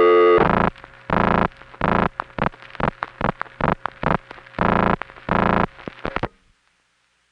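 Long-distance telephone line during call setup through 1970s electronic and step-by-step tandem switches: loud, harsh bursts of signalling tones and switching clicks at uneven intervals over a steady line hum, stopping about six seconds in.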